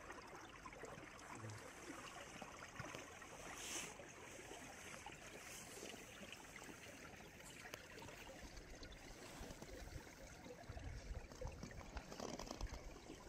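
Faint trickling of open river water flowing through a hole in the ice, with a low rumble coming in near the end.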